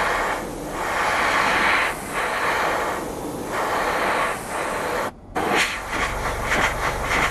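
Airbrush spraying paint: a steady hiss of air that dips briefly several times as the spraying pauses, then cuts off about five seconds in. After a short break comes a lower hum with light clicks.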